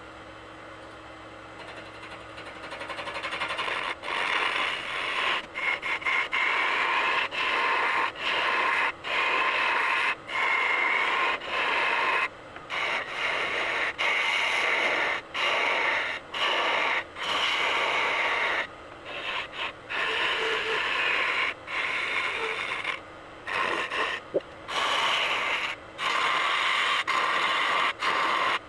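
Wood lathe turning a walnut-and-epoxy vase blank, with a gouge cutting into the spinning wood: a loud rough shaving noise that builds in a few seconds in and is broken by many short gaps as the tool lifts off and goes back on. Before the cut starts only the lathe motor is heard, humming steadily.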